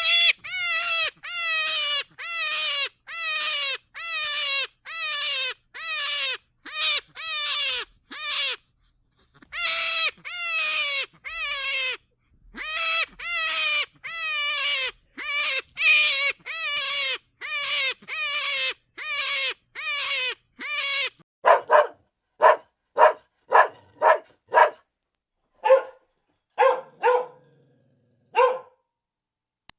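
A dog yelping in a fast series, about two high, falling yelps a second. About three-quarters of the way through it gives way to shorter, lower barks, roughly one a second.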